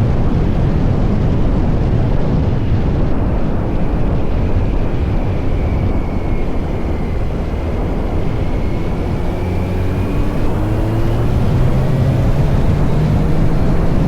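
Kawasaki Z900 SE's inline-four running through an SC-Project CR-T exhaust on the move, under heavy wind rush on the microphone. Its note climbs steadily over the second half as the bike accelerates.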